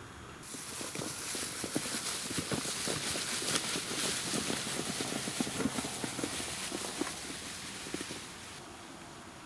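Footsteps crunching on the ground: an irregular run of crunches and clicks that starts suddenly just after the beginning and dies away near the end.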